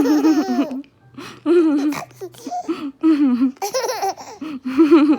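A seven-month-old baby laughing in repeated short bursts, about one a second, with brief pauses between.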